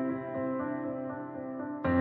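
Background music: slow, held chords, with a new chord coming in sharply near the end.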